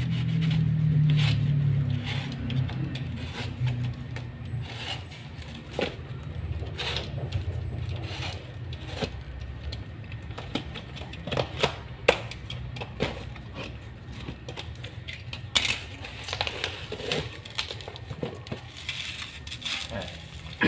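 Cardboard packaging being torn and peeled apart by hand, with packing tape ripping and many short crackles and snaps. About fifteen seconds in, plastic bubble wrap starts crinkling as the wrapped exhaust is pulled out. A low hum sounds during the first couple of seconds.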